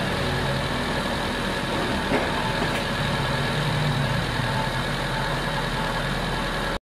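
Car engine idling steadily with the hood open, warming up to working temperature to test a newly installed thermostat and radiator-fan thermoswitch.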